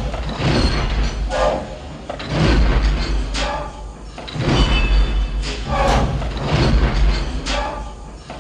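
AT-AT walker walking sound effect: a heavy mechanical footfall thud alternating with a hissing, whirring servo-like burst, repeating about every two seconds.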